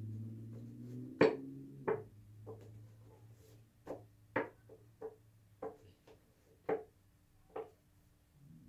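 A deck of tarot cards being shuffled and squared by hand, giving about a dozen short, sharp taps and clicks at uneven spacing.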